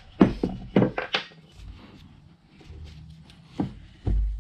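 Brass hammer tapping a pin punch to drive out the roll pin that holds a cam on the power feed's shaft: about four sharp metallic strikes in the first second or so. A few lighter knocks and a dull thump follow near the end.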